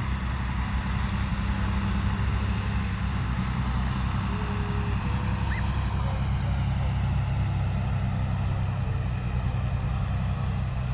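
Semi truck's diesel engine running hard under load while pulling a weight-transfer sled, a steady deep drone that holds its pitch.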